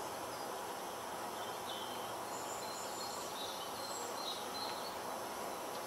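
Steady outdoor background noise, with a few short, high bird chirps from about one second in to near the end.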